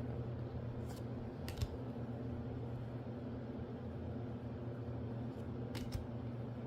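A few soft clicks of Magic: The Gathering cards being handled and flipped through, over a steady low hum.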